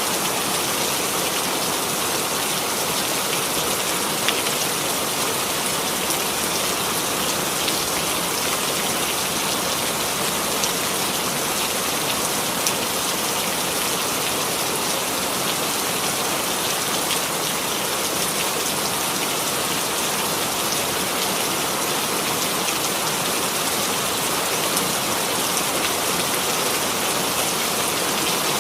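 Steady rain falling on a surface, a dense even hiss with scattered individual drops ticking through it.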